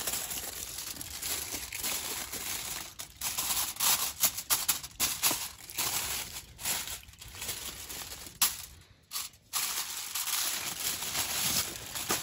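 Aluminium foil crinkling as it is pulled from the roll and folded and pressed flat by hand, in irregular crackles with a brief lull about nine seconds in.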